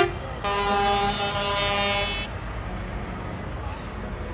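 Semi truck's air horn sounding one long blast of about two seconds, followed by the low rumble of the truck passing.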